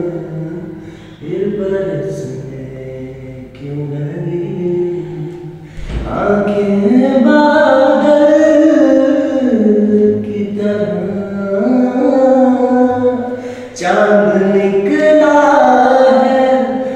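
A man singing unaccompanied in long, drawn-out melodic notes, softer at first and louder from about six seconds in.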